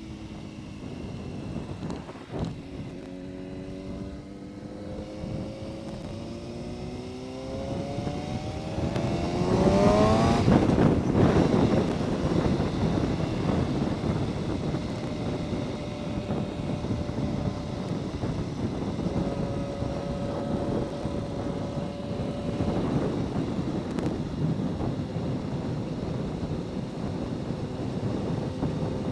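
Yamaha R1 inline-four engine accelerating, its pitch rising steadily for several seconds, then holding a steady speed under loud wind rush from about a third of the way in.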